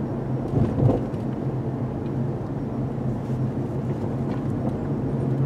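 Cabin noise of a 2018 Honda Civic Hatchback Sport on the move: a steady engine hum and road noise from the tyres. There is a faint knock about a second in.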